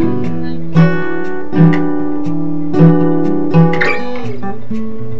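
Background music on a plucked acoustic guitar, with a steady rhythm of picked notes and chords.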